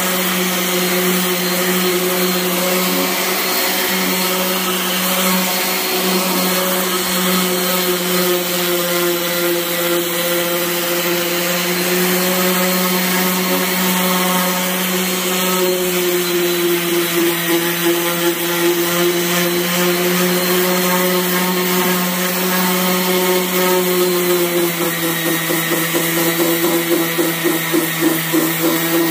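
DeWalt random orbital sander running steadily with a worn 60-grit disc, sanding a grooved metal band saw table top. About 25 seconds in, the motor note dips slightly and starts to waver in loudness.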